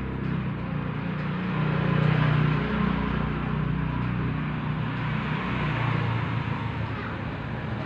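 A motor running with a steady low hum and a hiss above it, growing a little louder about two seconds in.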